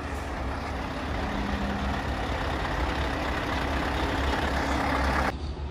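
Scania R580 tractor unit's V8 diesel running steadily as the truck pulls slowly up, growing a little louder. It cuts off sharply about five seconds in.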